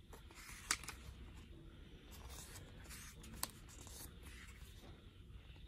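Paper booklet handled by hand, its pages rustling and being turned, with a couple of sharp paper ticks, one just under a second in and a louder one about halfway.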